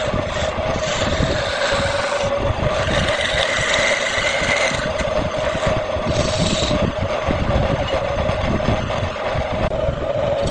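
Wood lathe running steadily, a constant motor hum under a rough noise from the spinning work that thins and thickens now and then.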